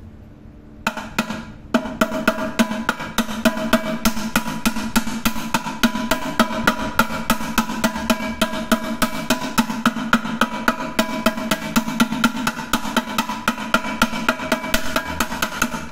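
Small hammer tapping rapidly and evenly on a steel rivet, about three blows a second, peening it over to form a head that fastens a handle bracket to a pressure cooker. The pot's metal body rings with each blow. The tapping starts about a second in.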